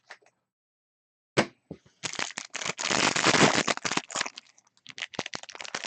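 Trading card packaging being opened: a single sharp crack, then a couple of seconds of dense tearing and crinkling wrapper that breaks up into rapid small crinkles and clicks.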